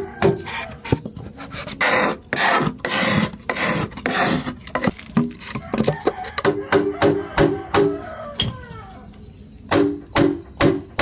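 Hand tools knocking on wood or bamboo in quick runs, some strikes ringing briefly, with a stretch of rough scraping or rasping early on.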